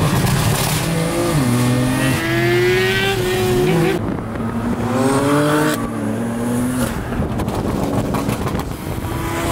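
Car engine accelerating hard, its pitch climbing twice over a few seconds, with an abrupt change about four seconds in.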